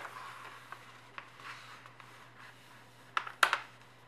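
A sheet of 80 g/m² A4 paper rustling and sliding on a tabletop as it is folded, with a couple of light ticks, then two sharp crinkles of paper a little past three seconds in as the fold is pressed flat.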